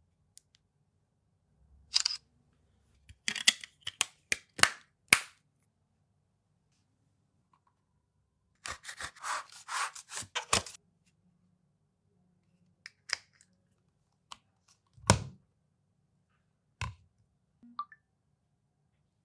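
Unboxing handling noises: a run of sharp clicks and taps, a short crackly rustle about nine seconds in, and two duller knocks near the end as a phone and its packaging are handled.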